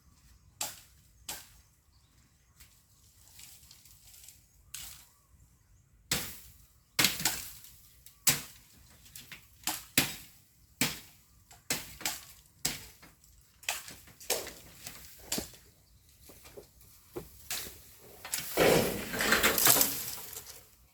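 Bamboo being chopped by hand with a blade: a series of sharp chopping strikes, faint at first, then louder at about one a second. Near the end comes about two seconds of rustling, crashing noise.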